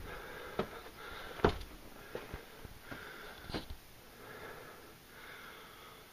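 Footsteps on a sandy rock path, with several sharp knocks in the first four seconds that thin out after that. A person breathes heavily close to the microphone throughout.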